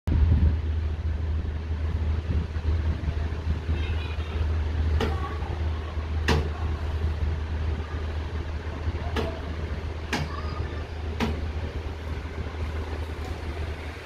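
Energized electrical control panel for a fountain pump giving off a steady low mains hum, with five sharp clicks as its push buttons are operated. The hum cuts off suddenly near the end.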